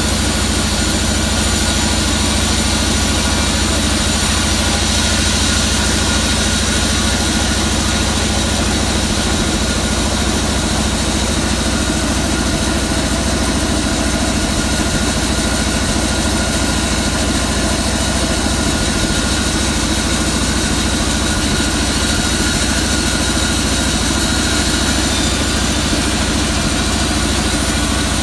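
Sawmill band saw running steadily while it rips a waru log lengthwise into boards: an even machine drone with a hiss from the blade cutting.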